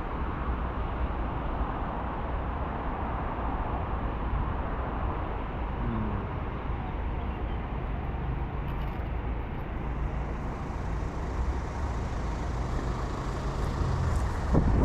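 Steady low rumble of motor vehicle noise, with a faint engine hum under it from about halfway through, and one short sharp click near the end.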